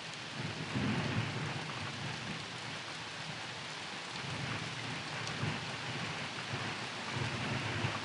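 Thunderstorm ambience: a steady hiss of rain with low thunder rumbling underneath, swelling and fading now and then.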